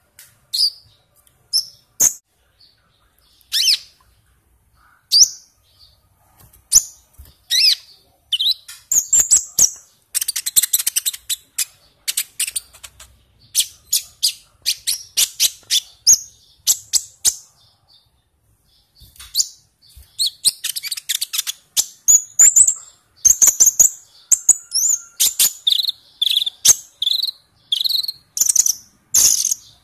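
Olive-backed sunbird singing in a cage: sharp high chips and short whistled notes, scattered at first, then from about eight seconds in rapid chattering runs and trills with a brief pause partway through.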